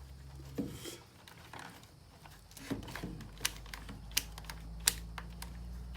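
Fingers working plastic wire connectors in a generator's control panel: a few small, sharp clicks and light rattles, spread out and irregular. The starter relay itself is not clicking, which the owner takes for a fault inside the relay.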